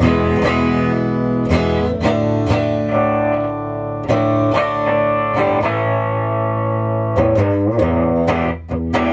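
Electric guitar strummed in chords through a homemade tube amplifier converted from a late-1950s Symphonic record-player amp (12SQ7 preamp tube, 50L6 output tube), played into a 12-inch Fender speaker in a cabinet. Chords are struck roughly every half second and ring on between strokes.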